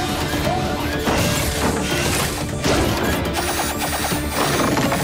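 Cartoon sound effects of repeated crashing and clanking hits, over action background music.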